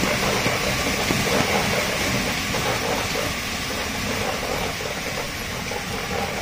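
Dog treadmill running steadily under a dog that runs on it in a harness, a continuous mechanical running noise from the belt and roller.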